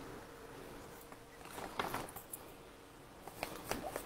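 Faint scattered taps and light rustles of paper and a phone being handled, a few about a second and a half in and more near the end.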